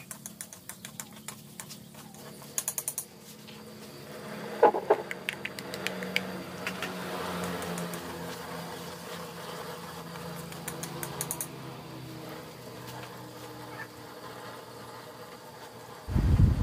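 Oil frying in a wok, a faint steady sizzle with a few quick clicks about three seconds in. Near the end a sudden loud rumbling rush starts and drowns it.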